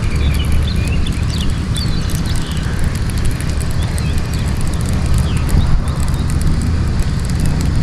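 Outdoor ambience: a steady low rumble with small birds chirping now and then, mostly in the first few seconds.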